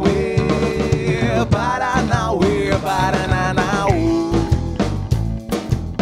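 A rock band playing live: acoustic and electric guitars, bass and drum kit behind a lead singer holding long sung notes. The voice stops about four and a half seconds in, and the band plays on with a steady drum beat.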